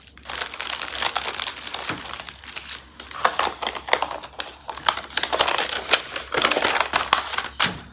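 Plastic bags of diamond-painting drills crinkling as they are handled, then a sheet of paper rustling as it is unfolded, in a run of crackly handling noise with brief pauses.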